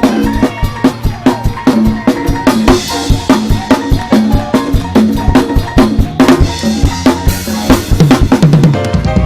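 Live drum kit playing a fast, driving beat of kick, snare and rimshots with a bass line underneath, breaking into a run of quicker hits near the end.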